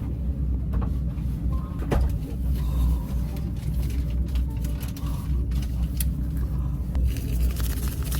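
Steady low rumble of a passenger train, with a few light clicks and knocks.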